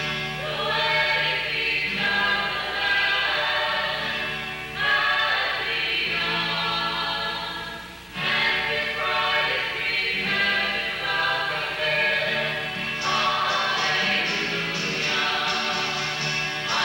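A group of voices singing a Christian hymn in harmony, in long held phrases with short breaks between them, the deepest about eight seconds in.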